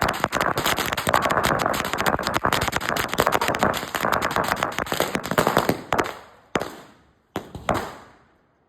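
A VAP 5000-wala firecracker string going off in a dense, rapid run of bangs that thins out about six seconds in to a few last separate cracks as the string burns out.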